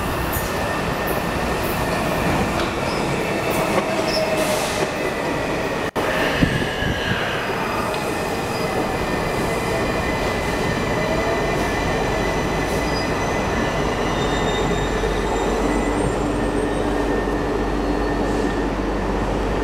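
Washington Metro (WMATA) train running in along the station platform: a steady rolling rumble with thin, high wheel-squeal tones, and a whine that slides in pitch as it slows. A steady hum near the end.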